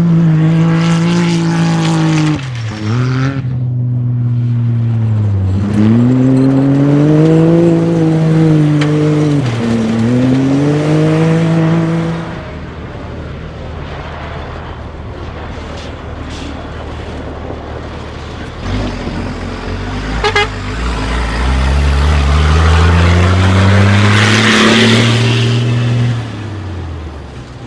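Cross-country rally vehicles racing flat out, engines revving high and dropping in pitch at each gear change, three quick shifts in the first dozen seconds. After a quieter spell, another engine climbs through the gears with a loud hiss near the end.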